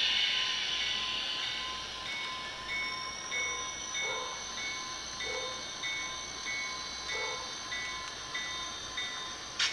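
HO-scale model diesel locomotive's sound decoder ringing its bell as the train departs, about one and a half even strokes a second, over a faint high whine that rises and then holds. Two sharp clicks come near the end.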